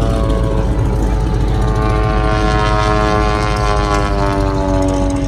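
Single-engine aerobatic propeller plane flying past overhead, its engine-and-propeller drone sliding down in pitch from about two seconds in as it passes by.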